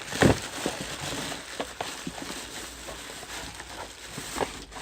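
Packaging rustling and crinkling as a strimmer shoulder harness is unwrapped, with a sharp knock about a quarter second in and scattered clicks.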